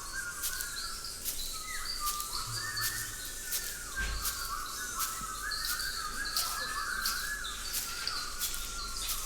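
Bird-like chirping, many short overlapping calls, with sharp clicks about once or twice a second: foley bird and insect ambience made by the pupils for the film's soundtrack.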